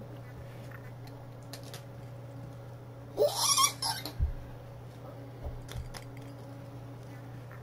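A short high-pitched squeal about three seconds in, the loudest sound here, followed by a soft thud on the table. Under it, a steady low hum and a few faint clicks of small metal bracket parts and screws being handled.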